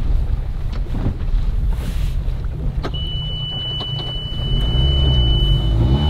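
Steady low rumble of wind and water on a fishing boat. About halfway through, a steady high-pitched electronic tone starts and holds. Near the end the boat's engine comes up, rising in pitch and settling into a steady hum.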